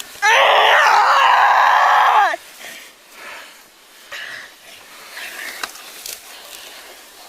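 A woman's loud, high-pitched scream held for about two seconds, dropping in pitch as it ends, from a resisting arrestee. Afterwards only faint rustling and a few light clicks.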